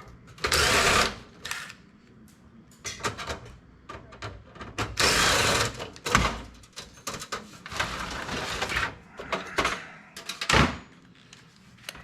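A power drill runs in short bursts about a second long, three times, as screws are backed out of computer cases being stripped for scrap. Sharp clicks and clatter of metal parts come between the bursts.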